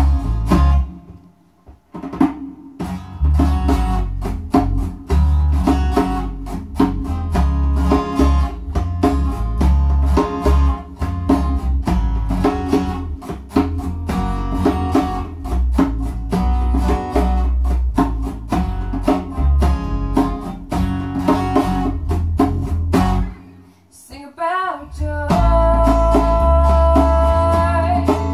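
Live acoustic band: a woman singing over strummed acoustic guitar, a djembe played by hand and bass guitar. The music breaks off briefly about a second in and again a few seconds before the end, after which her singing comes back in long held notes.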